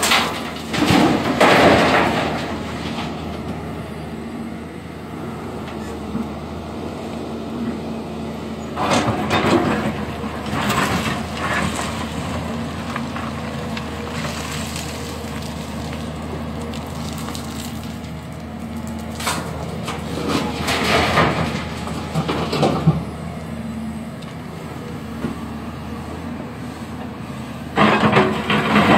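Hyundai 170W wheeled excavator's diesel engine running steadily under load. Over it come several loud bursts of broken rock clattering and scraping as the bucket dumps stone into a dump truck and digs back into the rock pile.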